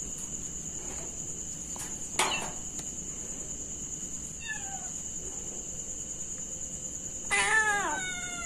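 Young kitten meowing: a faint short falling meow about halfway in, then a louder, longer falling meow near the end. A steady high-pitched tone runs underneath throughout.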